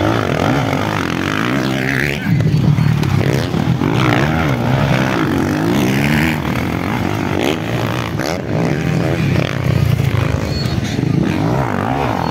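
Motocross dirt bike engines revving hard through a turn, several bikes passing one after another, the engine pitch repeatedly rising and falling as riders open and shut the throttle.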